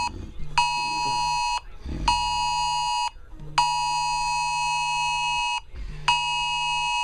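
Wireless Emergency Alert attention signal on a phone, sounding for a severe thunderstorm warning: a loud two-pitched electronic tone pulsing in a fixed pattern of one-second beeps and one two-second beep, separated by half-second gaps, with a low buzz under each tone.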